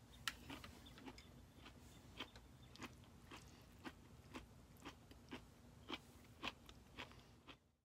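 Faint chewing of a mouthful of stir fry, with small crunches about twice a second, over a low steady hum. The sound cuts off suddenly near the end.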